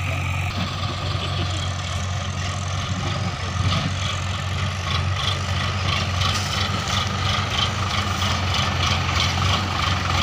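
Heavy diesel machinery running steadily, its low engine hum unbroken. From about four seconds in a regular clatter joins it, roughly twice a second.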